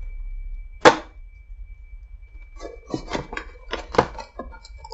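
Cardboard snack-cake box being pulled open by hand: a single sharp click about a second in, then a run of scratchy tearing and rubbing strokes from the flap through the second half.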